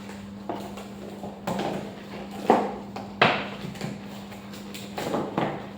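A gift box and its wrapping being handled and opened by hand: scattered knocks and rustling, about seven sharp knocks in all, over a steady low hum.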